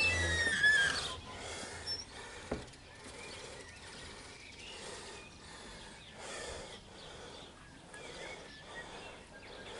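Faint outdoor ambience with bird calls: a few short descending chirps in the first second, then quieter. A single sharp click comes about two and a half seconds in.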